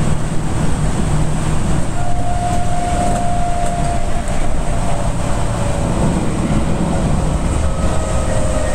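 Enshu Railway four-car electric train (a 2000-series set coupled to a 1000-series set) running along the line, heard from inside the front car behind the cab: a steady low rumble of motors and wheels on the rails. A faint whine comes in about two seconds in, and from about five seconds in faint tones slowly fall in pitch.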